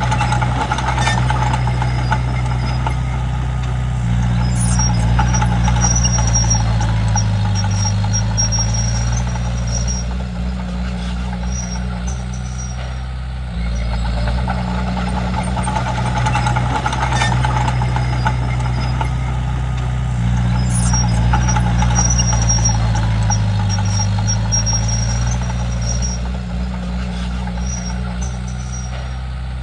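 Komatsu D31P crawler bulldozer's diesel engine running under load. Its note sags and recovers twice as it works, with faint high metallic squeaks now and then.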